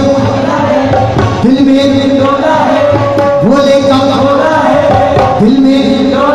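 Live Indian devotional music with tabla over a steady low drone, its melody swooping up into a held note about every two seconds.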